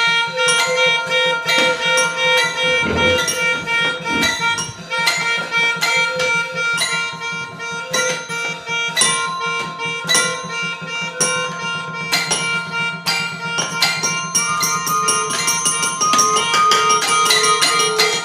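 Small ensemble of toy and small instruments playing together: a melodica holding steady tones over a busy stream of quick struck notes from a toy piano and toy glockenspiel, with synthesizer tones. Two brief pitch glides dip low about three and four seconds in, and the held notes change near the end.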